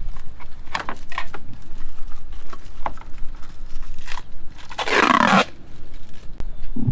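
Hard plastic clicks and scraping as a Jeep side marker light housing is worked into place by hand, with one longer, louder scrape about five seconds in and a dull knock at the end.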